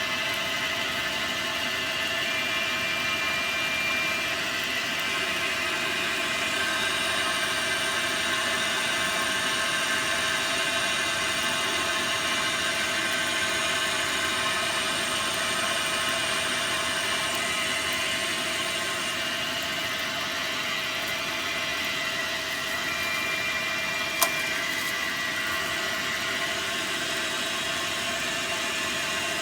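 Dyna Mechtronics DM3000 CNC lathe running steadily while machining a test part: a constant motor whir with several held high-pitched tones. There is one sharp click late on.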